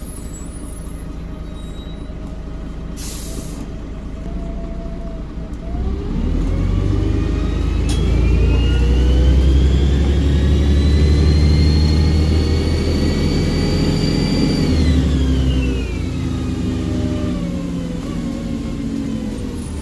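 Volvo Olympian double-decker bus engine idling, with a short air hiss about three seconds in. About six seconds in the engine pulls hard and the turbocharger whistle rises steadily for around eight seconds, then falls away as the engine eases off.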